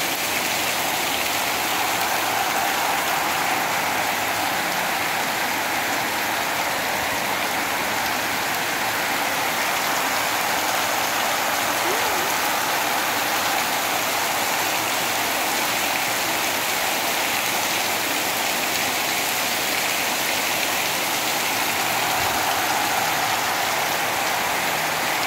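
Heavy rain pouring steadily onto a cobblestone street and pavement: an even, unbroken rush of falling water.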